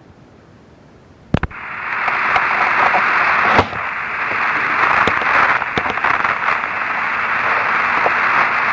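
Radio static on an open communications channel. A faint hiss gives way, about a second and a half in, to a couple of clicks and a loud, steady rushing hiss. Scattered crackling clicks break the hiss, the sharpest about three and a half seconds in.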